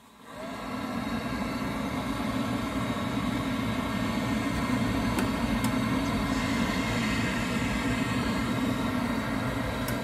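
Viessmann combi boiler starting on a heating demand with its gas supply turned off, so it cannot fire: a steady whirring hum that builds up over the first second and then holds, as the boiler pumps water round to clear air from the system.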